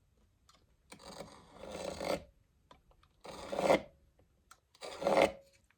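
Three rasping strokes of a hand tool cutting elm, each under about a second, with short pauses between: working a small L-shaped rebate into a board.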